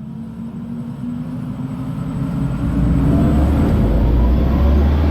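Audi e-tron GT's synthesized electric-drive sound: a deep hum with tones slowly rising in pitch, swelling louder over about three seconds as the car accelerates, then holding steady.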